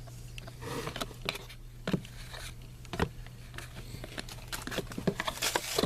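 Trading cards and foil pack wrappers being handled: irregular soft clicks, snaps and crinkles as cards are flipped and shuffled, over a steady low hum.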